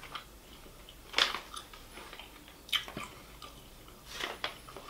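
A person chewing a dried pork salami snack stick, with a few short, sharp mouth sounds about a second in, near three seconds and again just after four seconds.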